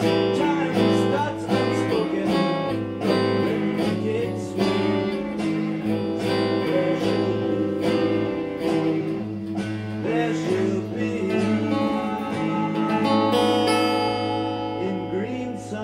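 Solo steel-string acoustic guitar played with picked notes in a steady run. Near the end a chord rings out and fades.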